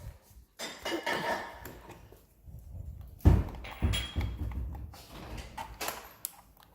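Handling noise from toy boxes and cars: rustling about a second in, a dull thump a little before the middle, and a few light clicks near the end.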